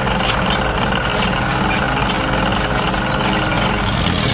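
Engine of a construction vehicle running steadily.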